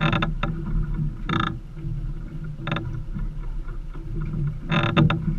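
Twin outboard motors idling in a steady low rumble, with four short bursts of noise at irregular intervals.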